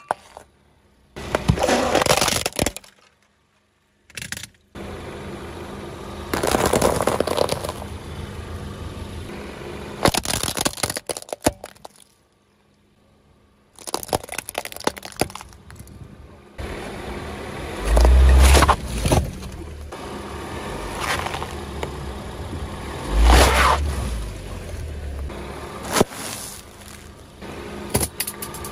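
A car tyre rolling slowly over objects on asphalt and crushing them: cracks, crunches and snaps of breaking plastic and ceramic, with the tyre grinding on the road. The sound comes in several separate takes with short silent gaps between, and two loud deep thumps in the second half.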